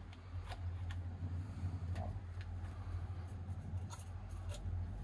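Light rustling and a few small clicks as fresh herb sprigs are picked from potted plants and pushed into opened beer cans, over a steady low hum.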